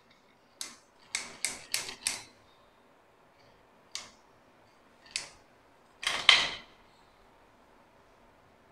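Short clicks and clatters of a homemade PCP air gun, a fire-extinguisher tank with a metal rod barrel, being handled: a quick run of four in the first couple of seconds, single clicks around four and five seconds in, and a louder burst lasting about half a second just after six seconds.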